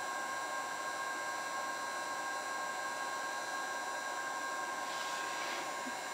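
Electric heat gun running on a high heat setting, a steady rush of blown air with a thin steady whine from its fan, as it melts a scrap of polyethylene tarp.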